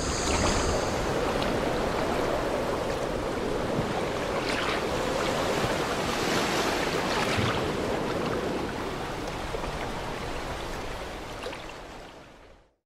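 A steady rushing noise like surf or flowing water, swelling a little now and then, fading out near the end.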